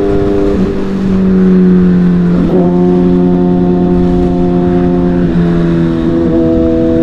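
Inline-four superbike engine running under way at steady revs, its pitch stepping with gear changes: it drops slightly about half a second in, jumps up about two and a half seconds in, and drops again about five seconds in. Low wind rumble on the helmet microphone underneath.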